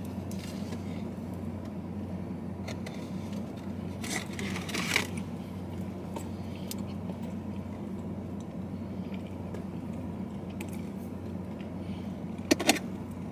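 Someone eating cheesecake: a few short scraping and clicking handling sounds, about four seconds in and again near the end, over a steady low hum.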